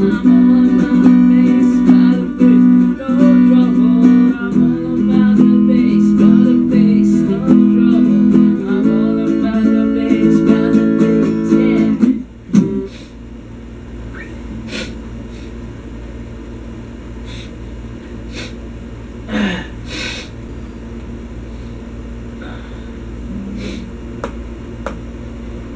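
Stratocaster-style electric guitar played clean, strumming chords steadily. About twelve seconds in the strumming stops suddenly, leaving only a few faint plucked notes and string clicks.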